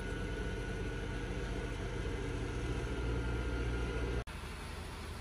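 Motor vehicle engine running steadily with a low hum. About four seconds in the sound cuts off abruptly, and a quieter, similar hum follows.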